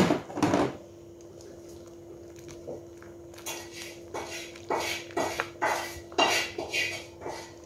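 A sharp knock at the start, then from about three seconds in a run of short stirring strokes as a black ladle moves through simmering soup in a metal cooking pot, over a steady low hum.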